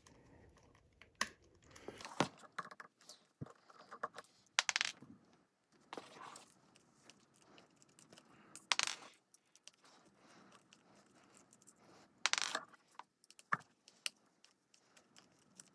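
A precision screwdriver backing Torx T6 screws out of the HomePod Mini's plastic top: scattered light clicks and scratches of the bit and the handled speaker body, with a few sharper ticks as a small metal screw is set down on the table.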